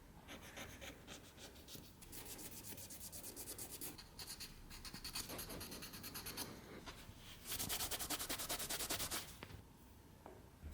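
Quick back-and-forth hand scrubbing strokes on a hard surface, coming in several spells with short pauses between them; the loudest spell is about three quarters of the way through.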